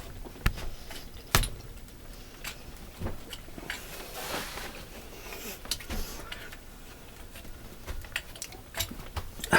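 Scattered clicks and knocks of handling, with two louder knocks in the first second and a half and a brief rustling hiss about four seconds in.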